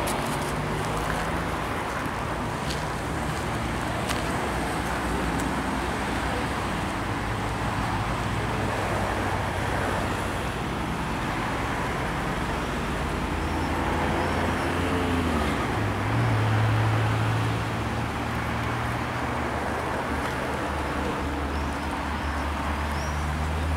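Double-deck electric passenger train running slowly, a steady low hum over outdoor noise, loudest briefly about two-thirds of the way in.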